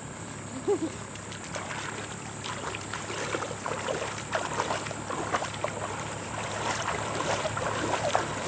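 Water splashing and knocking lightly and irregularly around a small river boat, getting busier about three seconds in, over a steady high-pitched insect drone.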